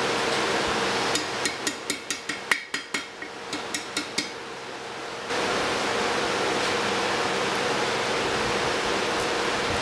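Blacksmith's hammer striking a red-hot steel ring on the anvil horn: about a dozen quick, ringing blows over some four seconds, starting about a second in. A steady rushing noise runs under the rest and drops away while the hammering lasts.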